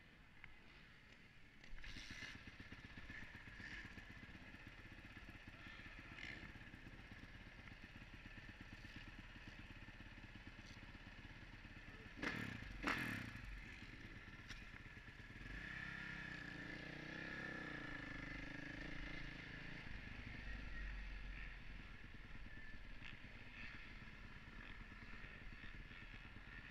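Honda 450 dirt bike engine running faintly at low speed, with two sharp knocks about halfway through; the engine gets a little louder, its pitch wavering, a few seconds later.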